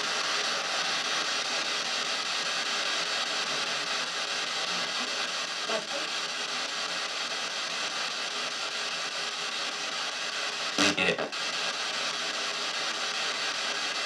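P-SB7 spirit box sweeping radio stations in reverse through stereo speakers: steady hissing static, with a faint snatch of broadcast sound about 6 s in and a louder brief burst about 11 s in. The operator takes these fragments for spirit voices saying "love/hate" and "be here".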